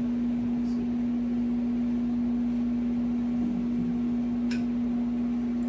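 A steady low hum with a faint hiss beneath it, and a faint click about four and a half seconds in.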